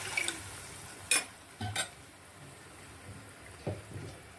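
The last of the water pouring into a cooking pot, then a stainless steel slotted spoon stirring and clinking sharply against the pot twice, with softer knocks near the end.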